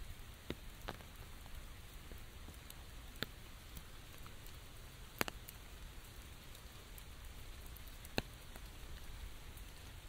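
Steady rain falling on an open umbrella and the wet foliage around it, a soft even hiss. A few large single drops hit the umbrella canopy with sharp taps, a second or more apart; the loudest come about five and eight seconds in.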